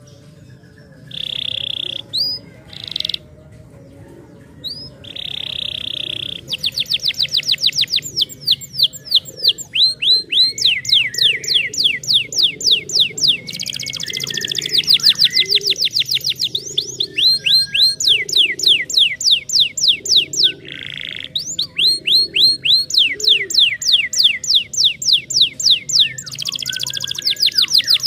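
Domestic canary singing: a few short held buzzy notes at first, then long, rapid trills of sharply falling whistled notes, broken by a short buzzy note about twenty seconds in.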